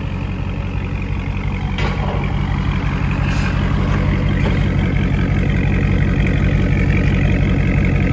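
Dodge Charger Scat Pack's 6.4-litre (392) HEMI V8 running steadily at low revs through a dual exhaust with the mid mufflers replaced by straight 3-inch pipe, a deep, even rumble that grows slightly louder toward the end.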